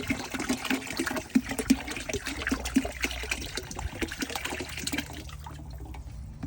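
Liquid descaling solution poured into a bucket of water, a continuous splashing pour that stops near the end.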